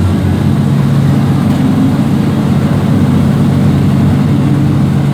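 Diesel train's underfloor engine running under power as the train pulls away from a station, heard from inside the carriage. Its low steady note steps up in pitch just after the start.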